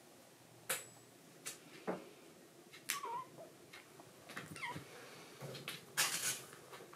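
A kitten giving two short mews as it resists having its claws clipped. Around the mews are several sharp clicks and, near the end, a loud burst of rustling as it struggles.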